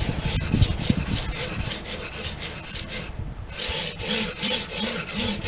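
Cold Steel Spada blade stroked back and forth on a 320-grit Washboard sharpening plate with light pressure, a rapid rasping scrape about four strokes a second. There is a short break a little past halfway before the strokes resume.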